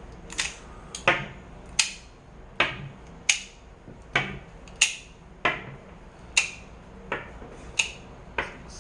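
9mm cartridges being worked through a Glock 43 single-stack magazine fitted with a +1 extension: a sharp metallic click about every 0.7 seconds, each with a short ring, as one round at a time is pushed past the magazine lips.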